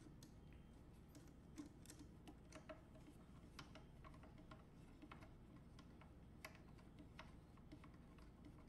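Faint, irregular small clicks and ticks of a long metal screw being turned out of a wooden case by screwdriver and fingers, with a couple of sharper clicks.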